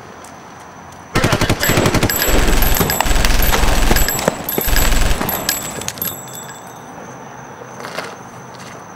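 Rapid gunfire, a long volley of shots in quick succession that starts suddenly about a second in, lasts about five seconds and trails off, with crickets chirping steadily underneath.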